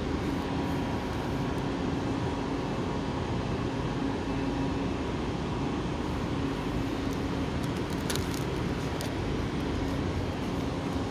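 West Midlands Railway electric multiple unit at the platform giving a steady electrical hum with a held low tone, with a few light clicks about eight seconds in.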